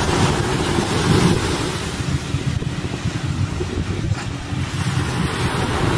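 Wind buffeting the microphone: a steady, rumbling noise that rises and falls a little, with ocean surf washing behind it.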